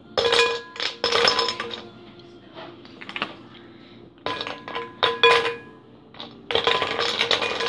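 Shiny Christmas ornament baubles clinking against a glass trifle bowl and against each other as they are set in, in five or so clusters of knocks. The louder knocks leave a short glassy ringing.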